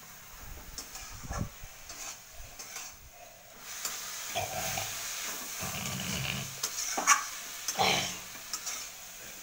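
Spatula stirring and scraping in an aluminium kadai as soya chunks fry with chopped mustard greens. The oil sizzle swells about four seconds in, and a couple of sharp scrapes against the pan come near the end.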